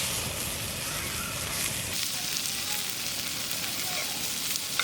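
Food sizzling steadily as it cooks over direct heat on a hot grill.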